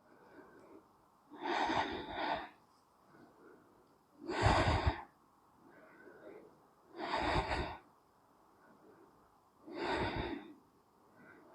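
A woman breathing audibly close to the microphone: four even breaths, about one every two and a half to three seconds, with quiet between them.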